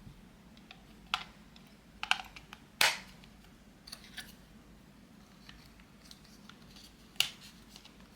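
A handful of sharp clicks and light taps from hands handling a boxed table clock and its packaging, spread out with quiet between them. The loudest comes near three seconds in and another about seven seconds in.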